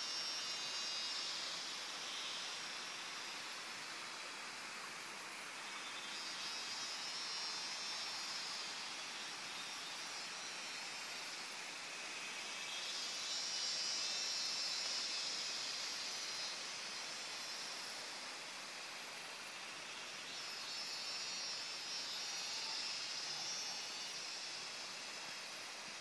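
Cicada chorus in tropical rainforest: a high, rapidly pulsing buzz that swells and fades in waves about every seven seconds, four times, over a faint steady high whine.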